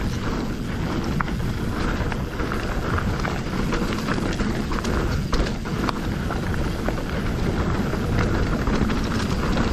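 Mountain bike riding fast over rough, washed-out singletrack: tyres rumbling over dirt and rock, with frequent clicks and knocks as the bike rattles over the bumps, and wind rushing over the microphone.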